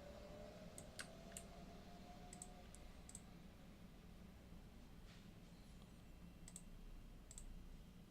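Faint, scattered clicks of a computer mouse, about nine in all, most of them in the first three seconds and a couple more near the end.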